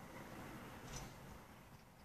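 Quiet outdoor background: a faint low rumble and hiss, with one brief faint high click about a second in.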